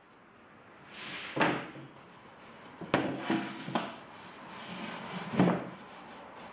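12 mm MDF panels being slid into a corner clamp and fitted against each other, the board edges scraping and knocking. There is a scraping rub about a second in, a few sharp knocks around three seconds in, and the loudest knock about five and a half seconds in.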